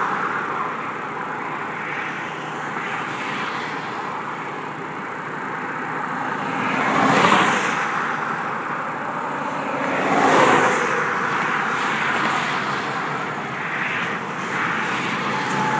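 Highway traffic: a steady rush of tyres and engines, with two vehicles passing close, swelling up and fading away about seven and ten seconds in.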